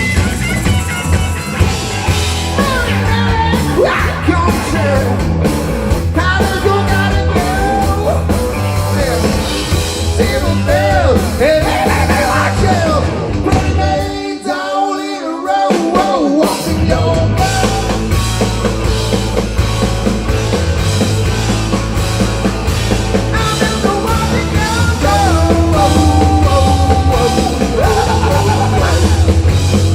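Rock song with a singing voice over guitar, bass and drums. The bass and drums drop out for about two seconds midway, then come back in.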